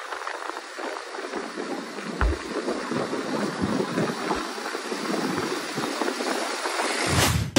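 Wind rushing over the microphone on a moving motorcycle, a steady hiss with a few brief low buffeting thumps.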